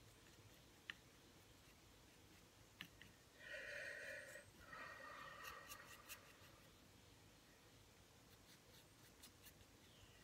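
Faint scratchy rub of a paintbrush dragged across a textured, gessoed painting surface: two strokes of about a second each, a little past the middle, with a few light ticks; otherwise near silence.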